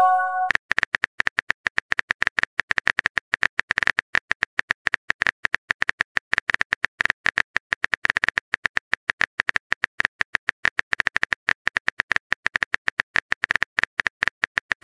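Rapid, uneven key clicks of a texting app's typing sound effect. They follow a short chiming message tone in the first half-second.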